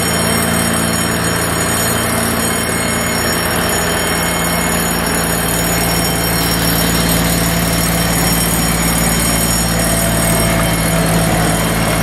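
Miniature park train running, heard from aboard: a steady engine hum under the noise of the wheels rolling on the narrow-gauge track.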